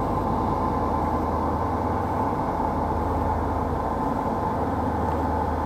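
River tug's diesel engine running with a steady low drone.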